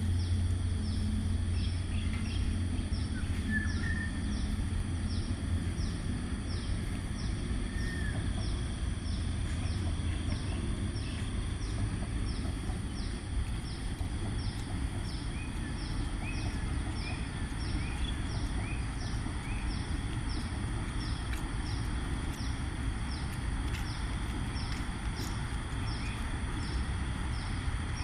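Outdoor ambience: a steady low rumble and a high steady hiss, with a high chirp repeating about twice a second and a few short bird whistles, around 3 and 8 seconds in and again near the middle.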